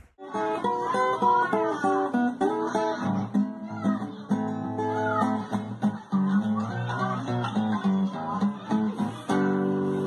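Acoustic guitar background music: a melody of plucked notes, changing about nine seconds in to a fuller, held strummed chord.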